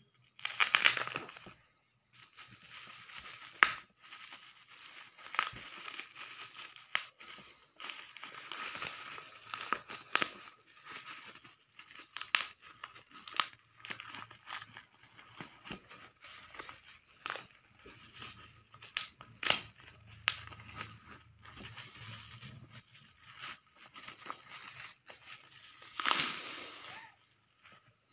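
Plastic bubble wrap crinkling and crackling as it is handled and torn open by hand, in irregular bursts with sharp clicks, loudest about a second in and again near the end.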